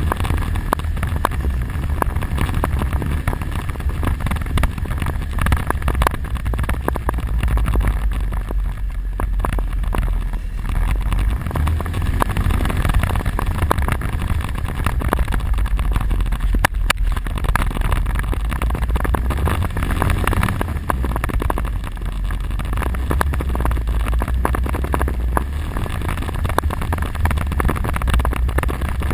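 ATV quad bike engine running as it is ridden, a heavy steady low rumble with many short knocks throughout.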